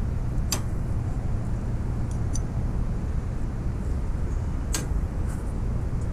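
An adjustable wrench working a snug nut on a steel bike frame, giving two sharp metallic clicks about four seconds apart and a fainter one between, over a steady low rumble.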